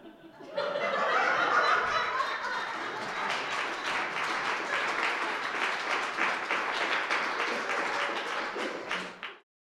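Audience applauding, starting about half a second in and cutting off abruptly shortly before the end.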